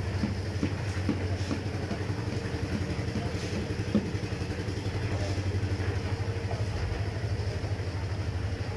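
An engine running steadily at a constant speed, with a low, fast, even pulse, and a few light knocks over it.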